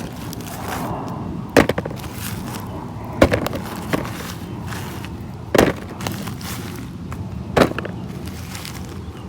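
Harvested potatoes being put onto a scale for weighing, four separate knocks a second or two apart.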